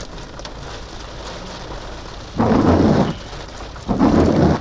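Steady rain from a severe thunderstorm. Near the end come two loud bursts of storm noise about a second apart, each under a second long.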